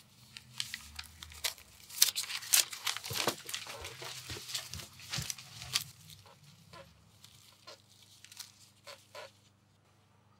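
Paper rustling and crinkling in someone's hands as a banknote is handled and folded. The crackles come thick and close together at first, then thin out to a few soft rustles and stop shortly before the end.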